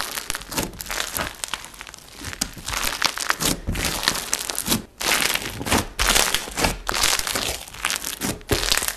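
Thick, bumpy-textured slime being squeezed and kneaded by hand, giving a dense run of crackling and popping, with brief lulls about five seconds in and near the end.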